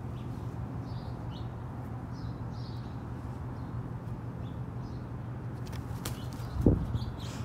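Small songbirds chirping in the background over a steady low hum. About six and a half seconds in comes a single loud whoosh of the red-tailed hawk's wings as it launches off the deck rail.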